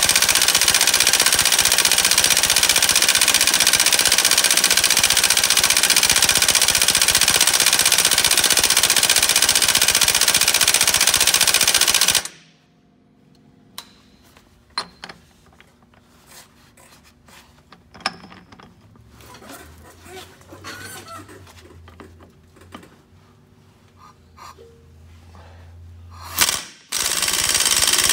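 Impact wrench hammering steadily on a truck's power divider input yoke nut for about twelve seconds without breaking it loose. It stops suddenly, leaving a quiet stretch with a few faint clicks and knocks, and starts hammering again near the end.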